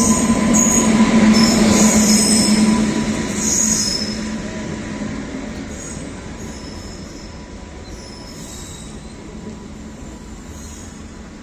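Train running on rails, its wheels giving short high-pitched squeals again and again over a dense rumble. It is loudest in the first three to four seconds, then grows steadily fainter.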